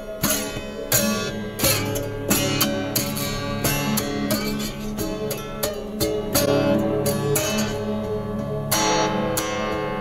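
Electrified autoharp (zither) played with quick strummed and struck notes, two or three attacks a second, ringing over a steady low drone.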